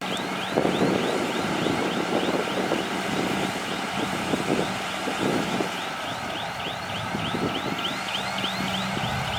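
Heavy earthmoving machinery, a bulldozer, working: a steady engine hum with irregular crunching and scraping of soil. Over it runs a rapid, repeated high chirp, about four a second.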